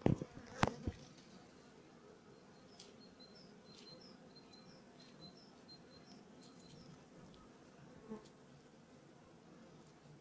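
Honey bees buzzing steadily around an open brood frame. A few sharp clicks in the first second and a single small knock near the end come from a metal uncapping fork scraping open drone brood cells on the comb.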